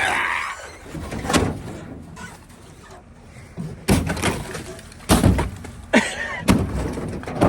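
A series of about six knocks and bangs with a rush of scraping at the start: appliances being handled and moved on a dolly.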